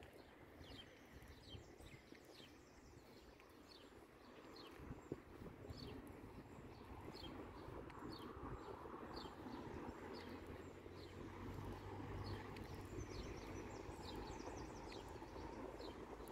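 Small birds chirping repeatedly in short, high, falling notes over a low outdoor rumble. The rumble grows louder after about four seconds.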